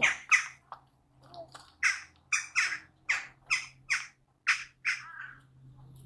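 A bird giving a run of short, harsh squawks, about two or three a second, over a faint steady low hum.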